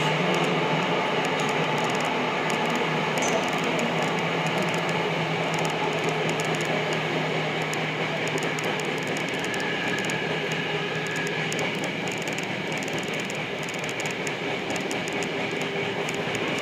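Tokyo Metro Namboku Line subway train running through a tunnel, heard from inside the car: a steady rumble and rail noise. A low hum fades out about halfway through.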